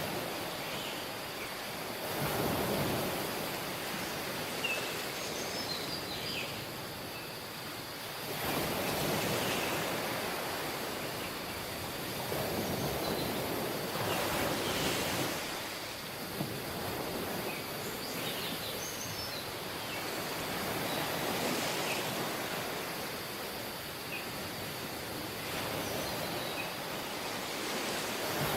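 Surf on a tropical beach: waves breaking and washing up the shore in slow swells about every six seconds, with faint high chirps in the background.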